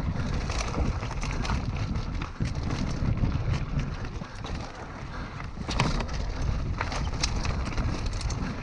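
Mountain bike riding fast down a rocky dirt trail: wind noise on the microphone with the tyres rolling over loose stones and dirt, and frequent sharp clicks and rattles from the bike over the rough ground.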